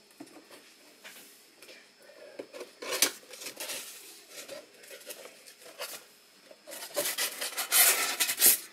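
Cardboard box being opened by hand: scattered scrapes and rubs, with a sharp click about three seconds in as the top flap is pried up. Near the end comes a louder run of rubbing and scraping as the styrofoam packing inside is worked loose.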